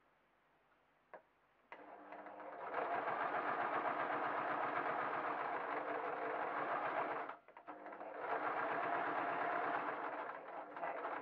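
Electric sewing machine stitching a seam through felt and fake fur: it starts after a small click, speeds up to a steady run, stops briefly about seven seconds in, then runs again.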